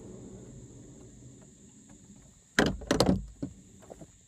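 A few loud knocks and handling thumps about two and a half seconds in, as if the camera is bumped and moved, after a stretch of low steady background noise while a man drinks from a glass beer bottle.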